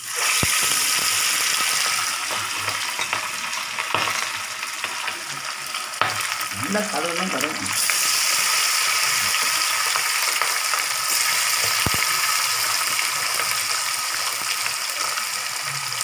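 A masala-coated fish piece going into hot oil in a wok: the oil breaks into a loud hiss at once and keeps sizzling steadily as it deep-fries, with a few light clicks.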